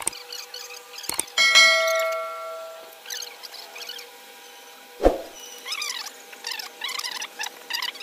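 Mouse clicks followed by a bright bell ding that rings out for about a second and a half: the sound effect of a subscribe-button animation. A single thump about five seconds in, then a run of quick high squeaks.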